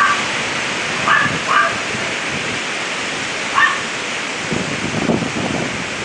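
A dog gives a few short, sharp barks: one at the start, two close together about a second in, and one more past the middle. They sound over the steady rush of strong storm wind in the trees and on the microphone, which gusts to a low rumble near the end.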